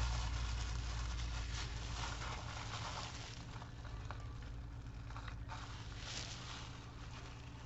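Thin clear plastic sheeting crinkling and rustling as it is handled, an irregular crackle that slowly fades.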